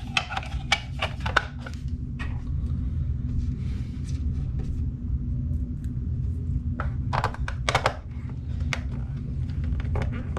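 Small plastic clicks and taps from handling a toy drone's remote control as its battery cover is fitted back on, in two short bursts, the first at the start and the second around seven to eight seconds in, over a steady low hum.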